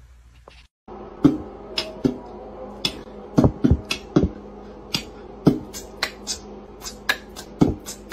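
Sharp, irregular clicking taps, several a second, from a cat's claws on a hard tiled floor as it walks, starting about a second in over a steady low hum.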